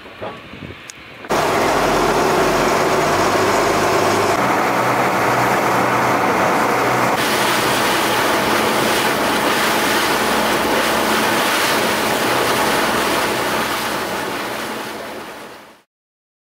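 Boat underway: a loud, steady rush of wind and water over the low hum of its engine, starting abruptly about a second in and fading out near the end.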